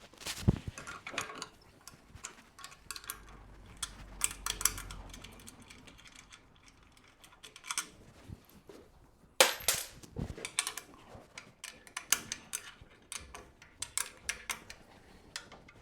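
Sharp knocks and clinks of the bed frame's top bars and their fittings being tapped loose and handled, loudest about half a second in and again near the middle, with a run of lighter clicks after it.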